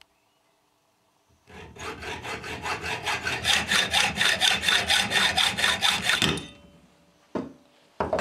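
Small fine-toothed hand saw cutting through a thin metal bolt blank clamped in a bench vise, with fast, even strokes, about five a second, starting about a second and a half in and stopping after about five seconds. Two short knocks follow near the end.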